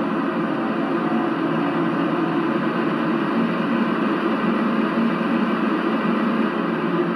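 An ESU sound decoder in an LGB G-scale model of an RhB Ge 4/4 III electric locomotive plays the standing locomotive's running sound through its loudspeaker: a steady, even rushing noise like cooling blowers, with no pitch change while the model stands still.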